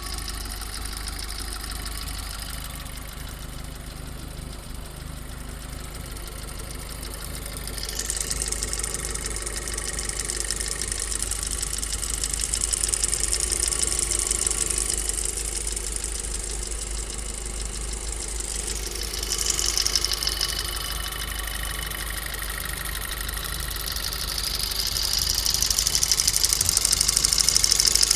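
Golf GTI's CDL 2.0 TFSI four-cylinder with forged pistons running cold, a knocking rattle over the idle: cold piston slap from the looser clearances of forged pistons. The engine gets louder a few times and loudest near the end.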